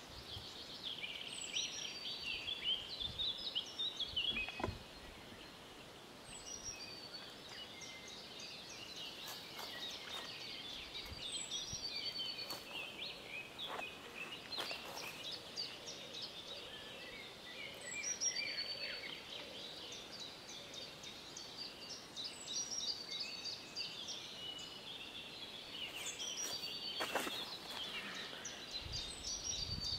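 Several songbirds singing at once in spring woodland, a dense layer of chirps and trills, with one bird repeating a short high song phrase about every five seconds.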